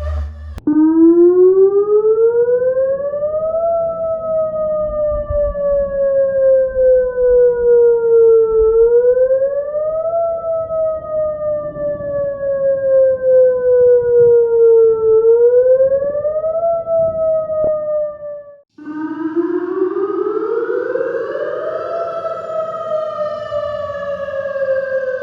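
Whelen WS-1000 tornado siren wailing: its pitch climbs quickly, then sinks slowly, three times over. About 18 seconds in it cuts off and starts again in a brighter-sounding version, climbing to its peak and then beginning a slow fall.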